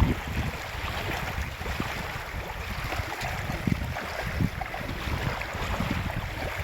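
Wind gusting on the microphone over the steady wash of river water and small waves.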